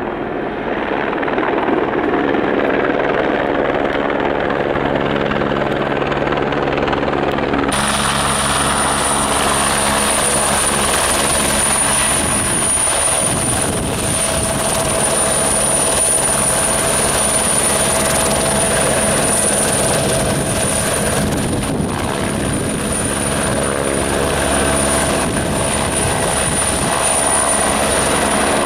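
Airbus AS350 Écureuil helicopter running at close range: steady rotor beat with its turbine, lifting off and hovering low. A high steady turbine whine comes in abruptly about eight seconds in.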